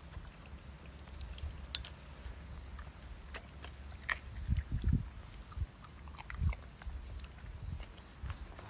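A dog chewing and biting raw chicken: scattered wet clicks and crunches, with a few heavier low thumps around the middle.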